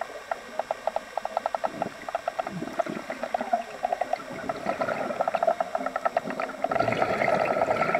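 Underwater recording of rapid trains of sharp clicks and crackles, a few to about ten a second, over a steady hum.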